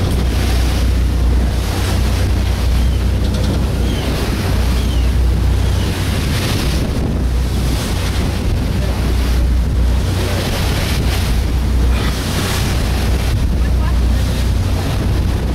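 Heavy wind buffeting the microphone and water rushing past a boat under way, over a steady low rumble, the gusts swelling and easing every second or two.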